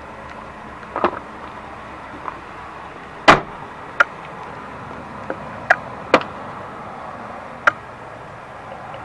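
A handful of sharp clicks and knocks from handling inside a vehicle cab, such as a rubber floor mat being moved and the hand-held camera bumping trim, the loudest about three seconds in, over a low steady hum.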